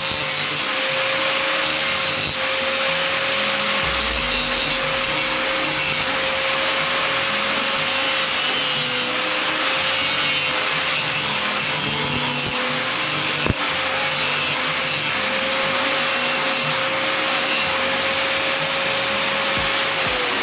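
A handheld power tool's electric motor running steadily with a constant whine while it grinds and rubs against the work, then winding down as it is switched off right at the end. A single sharp knock comes about two-thirds of the way through.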